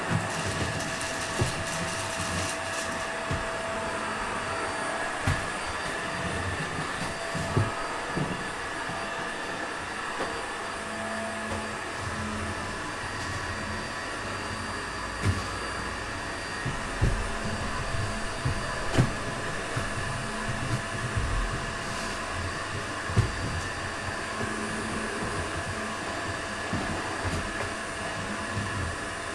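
Toshiba VC-BK750X vacuum cleaner running steadily while cleaning, a steady whine over the rush of air. A few short low thumps and knocks come through as it is worked over the floor.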